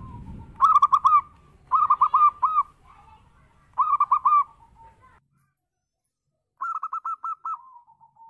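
Zebra dove (perkutut) cooing: four phrases of rapid, clipped cooing notes with pauses between them. The last phrase trails off into a lower, drawn-out note near the end.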